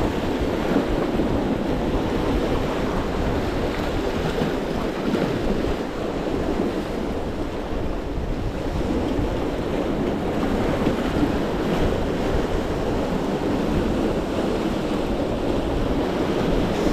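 Sea waves washing steadily against shoreline rocks, with wind rumbling on the microphone.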